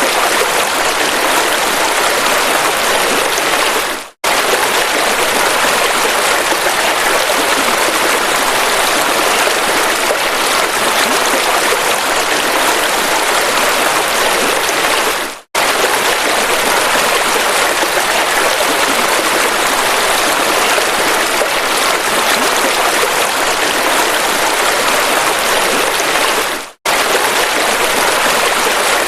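River water flowing steadily in a dense, even rush. It fades out and cuts back in three times, about every eleven seconds, where the recording loops.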